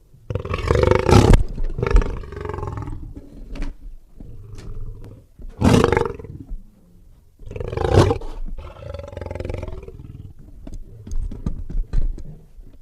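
Lion growling and snarling with snorts in a run of separate rough bursts, with lower rumbling between them; the loudest come about a second in, just before six seconds and around eight seconds in.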